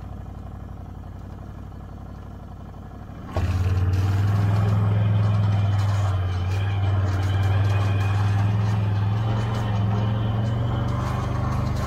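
Can-Am Outlander XMR 650 ATV's V-twin engine running steadily, then suddenly much louder and rougher about three seconds in.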